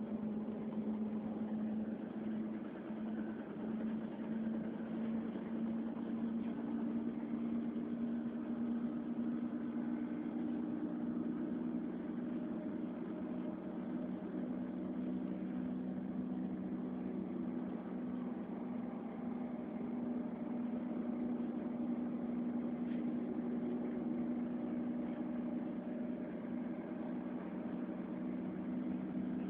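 Steady running hum of a train, with a low droning tone that shifts slightly in pitch about six seconds in.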